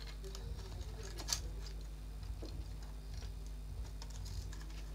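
Light, scattered clicks and taps from handling a phone's frame and screen flex cable, with one sharper click about a second in, over a steady low hum.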